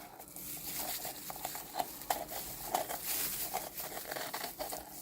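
Small handling noises: rustling and crinkling, with many light taps and clicks.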